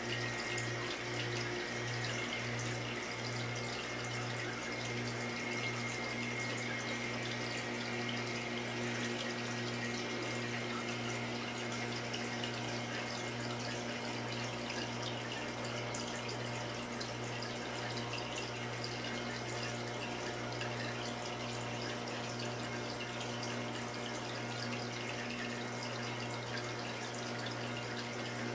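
Saltwater reef aquarium's water circulation and pump running: a steady rush of moving water over a low, even hum.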